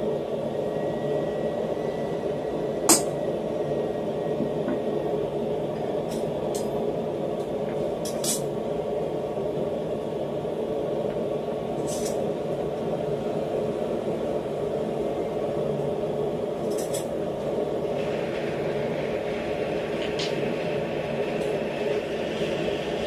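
One sharp metal tap about three seconds in, a hammer striking a center punch to mark round 1045 steel bar stock, then a few light clicks as the steel bar and tools are handled. A steady low hum runs underneath.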